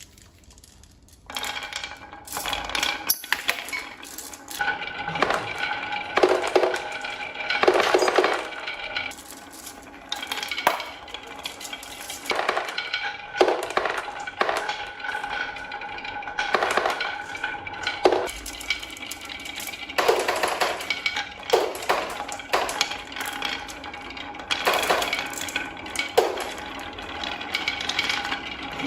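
Marbles rolling and clattering down a wooden HABA marble run, a dense stream of clicks and clinks with a light ringing tone, starting about a second in.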